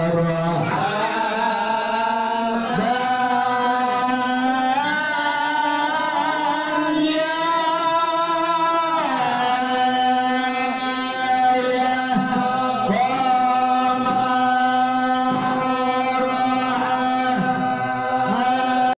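A group of men chanting marhaban, Arabic devotional praises of the Prophet, in long held, slowly wavering melodic notes. The melody drops to a new held pitch about nine seconds in.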